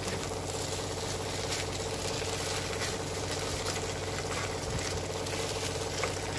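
A rice, pea and egg filling sizzling steadily as it fries in an oiled pan, stirred through with a slotted spatula, over a steady low hum.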